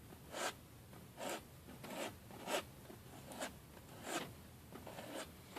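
Short scratchy strokes of paint being laid onto a stretched canvas, about eight in a row at a steady pace.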